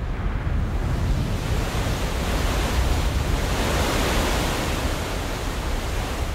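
Deep rumbling roar of surging, churning sea water, swelling to its loudest about four seconds in and then easing off.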